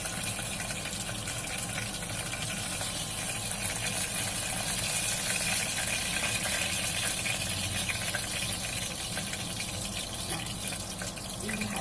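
Chicken pieces deep-frying in a saucepan of hot oil: a steady sizzle with fine crackling as the browned pieces are lifted out.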